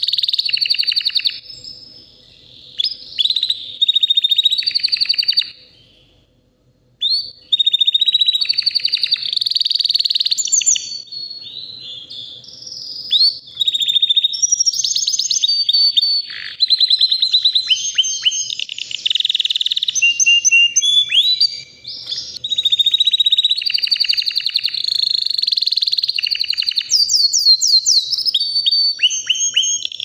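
White domestic canary singing: long phrases of rapid trills and rolls, broken by short pauses about 2 seconds in and again near 6 seconds.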